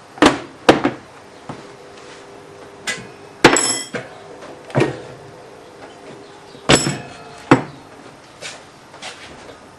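Sharp metal clanks and knocks, about six in all, from tyre levers and a motorcycle wheel rim being handled during a tyre change. One clank about three and a half seconds in rings on for a few seconds.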